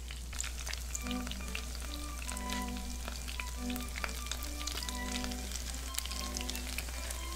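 Dough rolls frying in fat in a nonstick pan, the fat sizzling with dense irregular crackles as the water cooks off, over background music with sustained notes.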